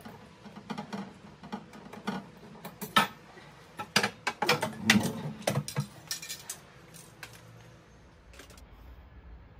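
Irregular clinks, knocks and clatter of bottles and household items being handled and taken out of a kitchen under-sink cabinet, loudest about three and five seconds in, fading to a faint low hum near the end.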